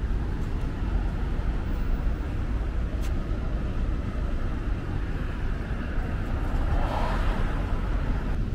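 Steady road-traffic noise from cars on a city street, with a short tick about three seconds in and a vehicle passing more loudly near the end.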